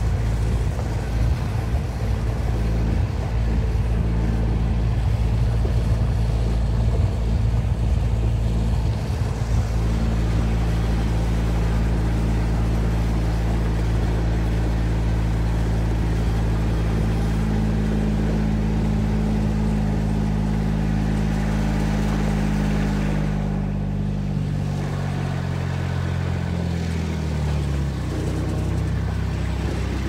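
Farm utility vehicle's engine running steadily while driving along a dirt lane, with knocks and jolts over the first ten seconds or so. A few seconds before the end the engine note drops as the vehicle slows to a stop.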